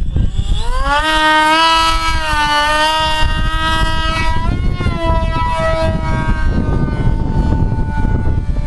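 Weston Tigershark RC plane's brushless electric motor (Scorpion 3026 1600kv) and 8x6 propeller whine, rising in pitch as it is throttled up about a second in and held at high throttle. After the hand launch the whine shifts, then falls lower and fainter as the plane flies off. Heavy wind rumble on the microphone underneath.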